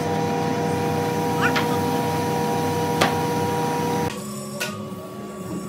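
A machine running steadily with a whine made of several fixed pitches over a noisy hum. About four seconds in it drops to a quieter, lower hum. A few sharp clicks come through it.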